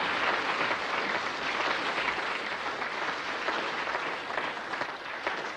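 Audience applauding, dense continuous clapping that eases off slightly toward the end.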